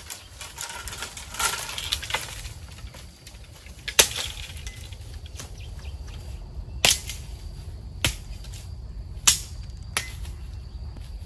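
Dry firewood being gathered and broken up: rustling of brush, then several sharp wooden cracks a second or so apart, the loudest about four seconds in.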